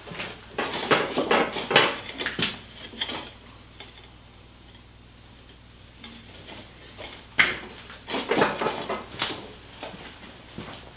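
Steel forge box being tipped up off its base and lowered back: clanks and knocks of metal on metal, in two bursts with a quiet stretch between them.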